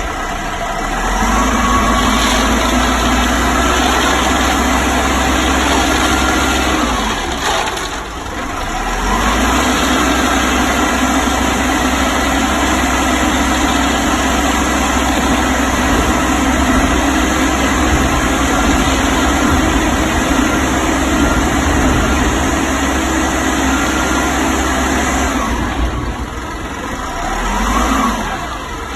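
Self-loading concrete mixer truck's diesel engine running steadily at raised revs. The revs drop briefly about eight seconds in, then come back, and ease off with a short rise and fall near the end.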